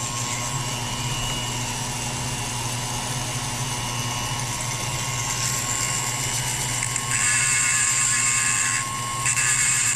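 Foredom flex-shaft rotary tool running steadily with a small abrasive point, then grinding down the end of a metal part held in a drill chuck in two spells, about seven and nine seconds in.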